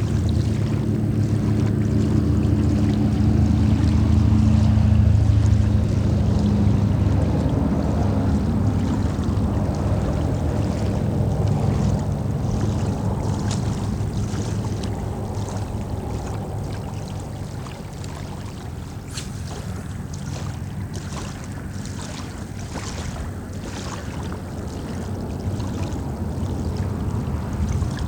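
Steady rush of moving water mixed with low wind rumble on the microphone. The rumble is heaviest in the first several seconds and eases off past the middle, and scattered small clicks come in the second half.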